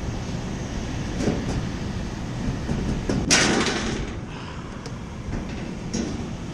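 Steady low mechanical rumble of rooftop HVAC equipment running, with a few light knocks and a short, bright scraping hiss about three seconds in.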